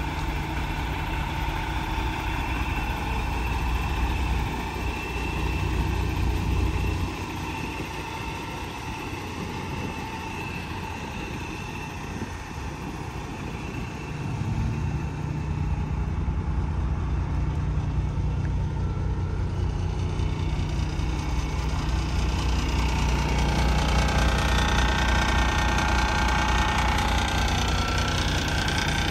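Heavy diesel truck engine idling steadily, a 510 hp Paccar MX13 breathing through straight exhaust pipes. The rumble grows quieter for several seconds from about seven seconds in, then louder again.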